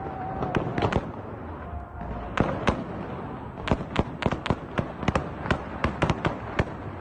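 Heavy gunfire: dozens of sharp shots in irregular bursts, a few at first, a lull between about one and two and a half seconds in, then rapid dense firing. It is the covering fire under which a militia convoy advances.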